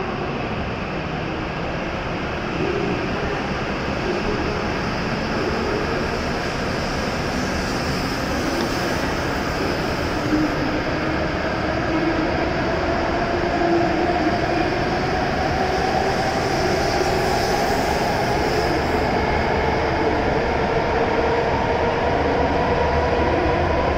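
E7 series Shinkansen train pulling out of the station and gathering speed along the platform. A steady rumble of the passing cars runs under a motor whine that climbs steadily in pitch as the train accelerates.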